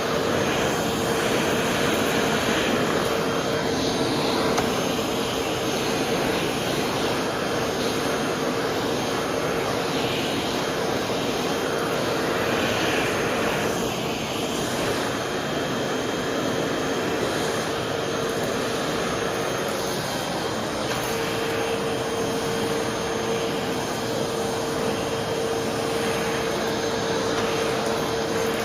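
Vacuum cleaner running steadily: a constant rushing of air with a steady motor whine that fades briefly about twenty seconds in.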